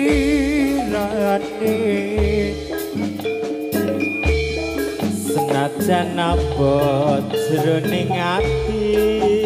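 Gamelan music accompanying a jathilan dance: a singer's wavering vocal line over ringing metallophone notes, drum and deep low notes that recur about once a second.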